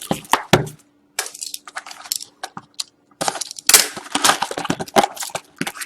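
A cardboard box of hockey-card packs being emptied by hand, the foil packs rustling and crackling as they slide out and tap onto the table. A quick run of sharp crackles and taps, a short pause, then a busier flurry.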